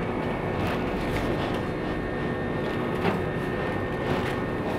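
Steady store background noise: a low hum of machinery with faint steady tones, and a few soft clicks about a second in, around three seconds in and near the end.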